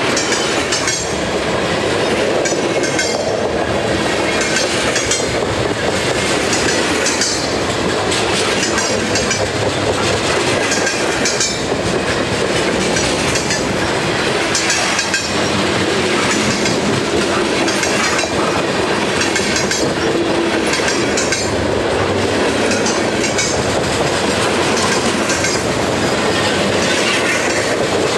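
A freight train's cars rolling past at close range: a steady loud rumble of steel wheels on rail, with the wheels clicking over the track in repeated groups as each car's trucks pass.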